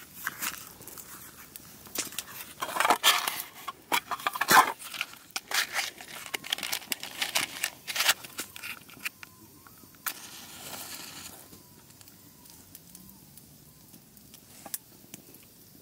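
Close crinkling and rustling with many sharp clicks, as of things being handled near the microphone, then a short hiss and a few scattered clicks.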